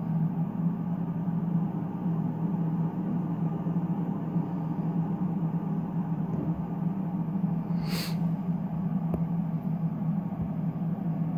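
Steady low mechanical hum, with one short sharp click about eight seconds in.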